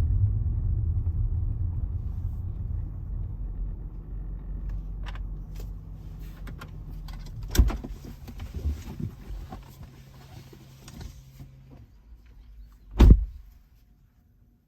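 A Range Rover's engine and road noise die away as the car slows to a stop. A few sharp clicks follow, then a single loud thump near the end, after which it goes quiet.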